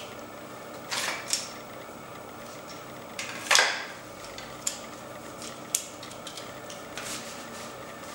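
Sharp clicks and short scrapes from an Aitor Oso Negro knife and its hard black sheath being handled, as the sheath's latch is opened and the knife drawn out. The loudest is a brief scrape about three and a half seconds in.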